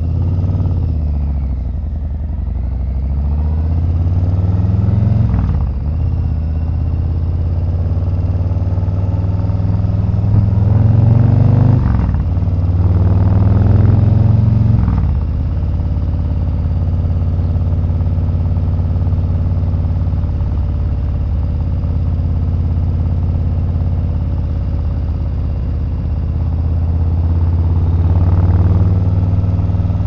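Harley-Davidson Milwaukee-Eight 117 V-twin running through TAB Performance slip-on mufflers, accelerating through the gears. Its note rises, drops at shifts about 5, 12 and 15 seconds in, then holds steady at cruising speed with a slight rise near the end.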